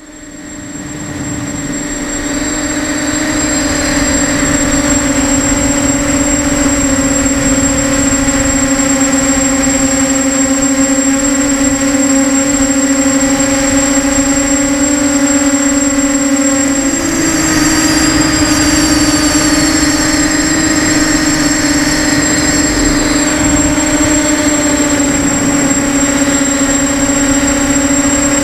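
Motors and propellers of a 250-size FPV racing quadcopter whining steadily, heard from the camera mounted on the quad. The sound fades in over the first couple of seconds and the pitch steps up slightly about two-thirds of the way through as the throttle rises.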